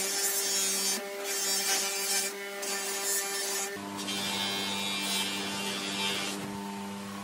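Bench motor spinning a white buffing wheel with a steady hum, while the willow of a cricket bat is pressed against it. The hiss of the wheel rubbing on the wood comes and goes as the bat is turned and moved.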